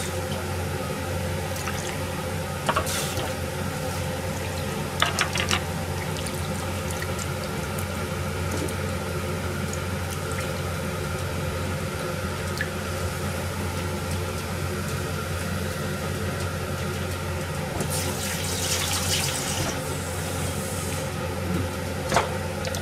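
Water running from a kitchen tap in short spells, about three and five seconds in and for a couple of seconds near the end, with a steady low hum throughout.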